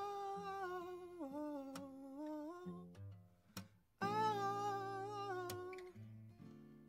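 A man's wordless singing in two long held phrases, the first stepping down in pitch about a second in, over an acoustic guitar.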